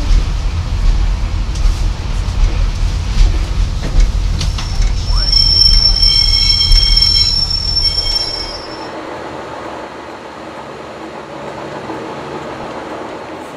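Class 143 Pacer railcar rolling to a stop: a heavy rumble with a loud wheel squeal of several high pitches held together for about four seconds, then the rumble cuts off about eight and a half seconds in, leaving a quieter steady hum.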